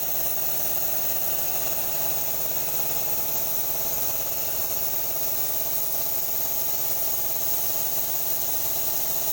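An engine idling steadily at an even speed, with a regular pulsing beat and no change in pitch.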